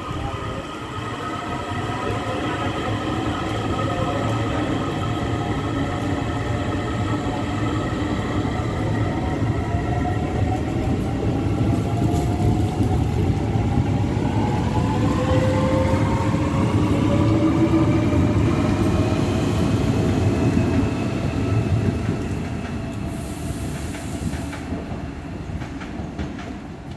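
DART electric commuter train running along the platform: a steady low rumble with several whining tones from the electric drive, which climb in pitch from about ten seconds in as the train gathers speed. The sound fades near the end, where a few sharp clicks come through.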